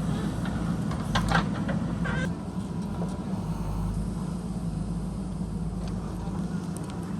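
Diesel engine of a JCB backhoe loader running steadily, with a few sharp metallic knocks and scrapes from about one to two seconds in.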